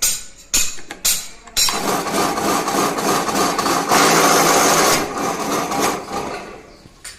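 Electric wire stripping machine stripping a 4 mm wire, separating the copper from the PVC insulation. A few sharp knocks come first, then the machine runs for about four seconds with a dense, rough noise over a steady hum that fades out near the end.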